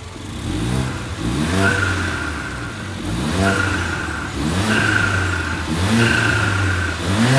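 Mercedes CLA45 AMG's turbocharged 2.0-litre four-cylinder engine being revved repeatedly while parked. Each rev rises quickly, holds briefly with a high whine over the engine note, then drops back. It is the stock sound, with the original air filter and airbox cover still fitted.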